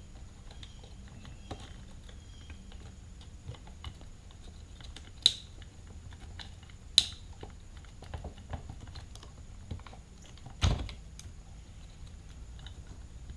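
Scattered clicks and knocks of an electric string trimmer's plastic housing and internal parts being handled as the motor is lifted out: two sharp clicks about five and seven seconds in, and a duller, heavier knock near the end, with light ticks between.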